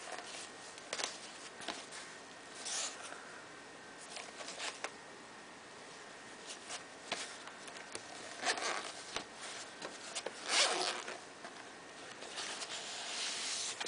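Zipper of a Belkin neoprene iPad sleeve being drawn open in several short scratchy strokes, the strongest about two-thirds of the way in, between quiet rustles of the neoprene being handled.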